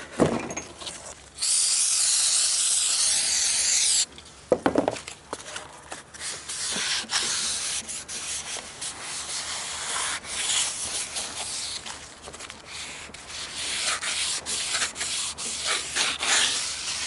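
An aerosol can of brake cleaner sprays in a steady hiss for about two and a half seconds. Then a piece of cardboard is scrubbed around the face of a new brake rotor in repeated rubbing strokes, wiping off its anti-rust oil.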